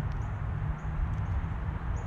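Outdoor ambience: a steady low rumble, with a few faint, short, high-pitched bird chirps over it.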